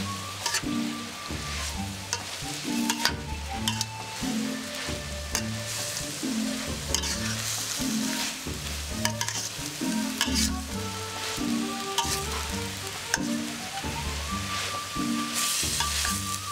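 Bamboo shoots and fried anchovies sizzling in oil in a metal pan while a spatula stirs them, with frequent scrapes and clicks of the spatula against the pan. Background music with a steady low beat plays underneath.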